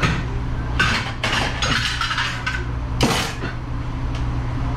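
Dishes and silverware clattering as they are handled and stacked, a run of sharp clinks and knocks with a loud clatter about three seconds in, over a steady low hum.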